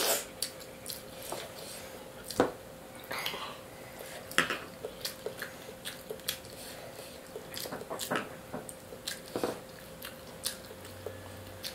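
Close-up chewing and mouth smacks of people eating mutton biryani by hand, in many short irregular clicks and squelches, with fingers working rice on steel plates. A faint steady hum runs underneath.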